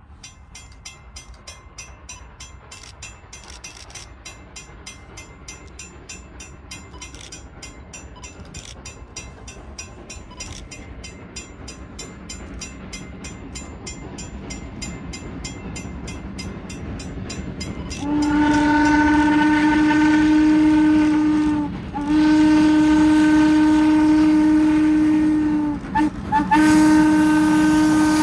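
Norfolk and Western steam locomotive approaching, its fast, even exhaust beat growing steadily louder. About two-thirds of the way in, its whistle blows two long blasts, a short one and another long one: the grade-crossing signal.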